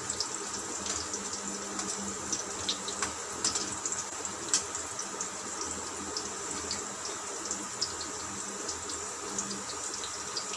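Batter-coated bottle gourd pakoras deep-frying in hot oil in a steel kadai: a steady sizzle with frequent small crackles and a few louder pops. They are late in frying, browned and crisping.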